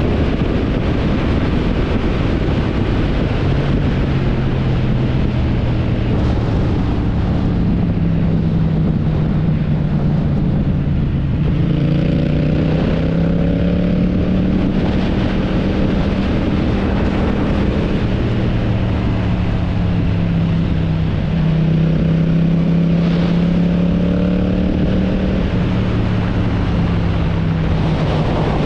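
AI-generated motorcycle engine sound: a steady cruising drone whose pitch drifts, rising slightly a couple of times, with wind rushing over it.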